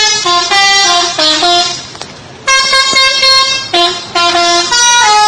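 Modified 'telolet' bus horn playing a quick multi-note tune: short notes stepping up and down, a brief pause, one long held note, then more quick notes.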